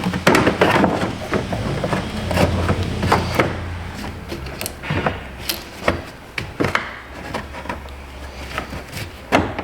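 Hard plastic air box knocking and clicking against its mounts as it is worked back into place by hand, with a string of irregular knocks and taps.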